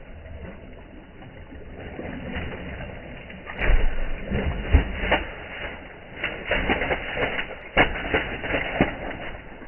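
A large fish thrashing and splashing in a cast net as it is hauled out of the water against the boat's side. It starts about three and a half seconds in as a run of sharp, irregular splashes and wet knocks, the loudest near the end as the fish is swung aboard.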